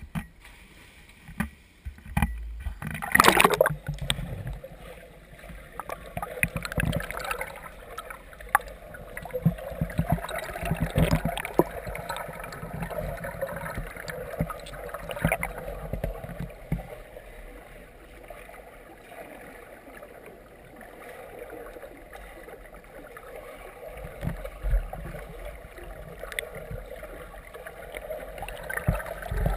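A swimmer diving in and swimming freestyle, heard through a camera held underwater: muffled splashing and bubbling from the strokes and kicks, with a louder burst of splashing a few seconds in.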